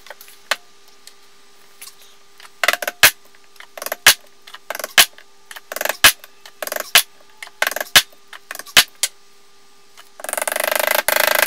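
A double bit axe being hung: a steel axe head is knocked down onto its wooden handle with a run of sharp knocks about once a second, each with a short metallic ring. Near the end comes a dense burst of rapid rattling of about a second.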